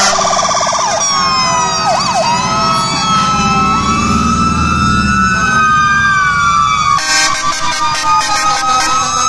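Fire engine sirens sounding, several overlapping wailing tones that glide up and down in pitch. A fast warble is heard at the start, and the sound turns choppy and pulsing about seven seconds in.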